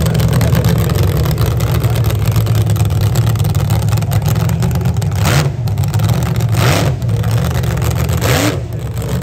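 Jet engine of a jet-powered drag car running steadily with a deep rumble, with three short afterburner blasts about a second and a half apart in the second half.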